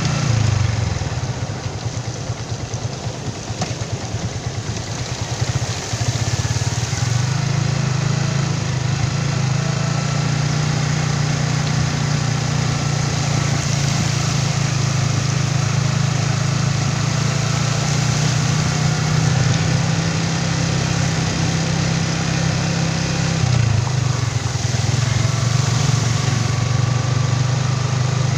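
Motorcycle engine running as the bike rides through shallow floodwater, with the swish of the tyres through the water over it. The engine note drops for several seconds near the start and briefly again near the end, as the throttle eases off.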